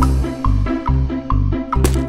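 Upbeat background music with a steady beat of about two beats a second, bass and short bright notes.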